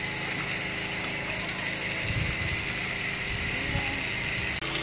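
Tap water running into a metal pot of fish pieces and splashing as the fish is rinsed by hand.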